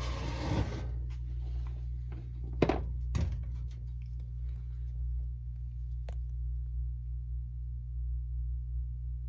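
Handling noise from a box fan being turned over and inspected: a brief rustle, then two knocks about half a second apart around three seconds in, and a single click later, over a steady low hum.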